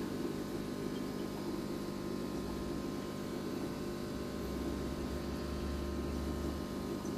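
Steady hum and hiss of aquarium equipment, with a deeper low rumble joining about two and a half seconds in and dropping away near the end.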